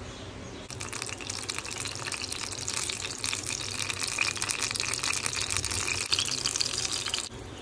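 Water running from a tap, a steady splashing hiss that starts about a second in and cuts off abruptly near the end.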